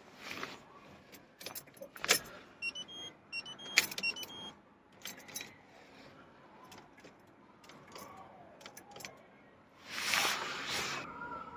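Car keys jangling and clicking, with a quick run of short high electronic beeps a few seconds in, then a louder rush of noise near the end.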